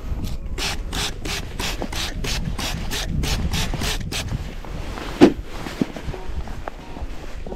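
Hand trigger spray bottle squirting water onto method feeder groundbait in a tray, about four quick spritzes a second for some four seconds, re-wetting the mix. Then one sharp knock about five seconds in, followed by the rustle of fingers working the damp groundbait.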